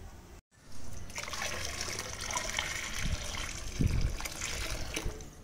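Hot jaggery syrup poured from an aluminium mug into a pot, a steady pouring trickle, with a couple of dull knocks in the second half.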